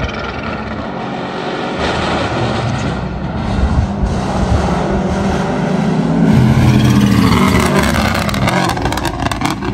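Rally car approaching at speed and passing close by, its engine note building to its loudest about six to eight seconds in and shifting in pitch as it goes past.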